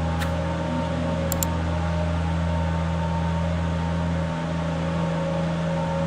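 Tractor engine running at a steady pitch, a constant low hum, with two faint clicks about a second and a half in.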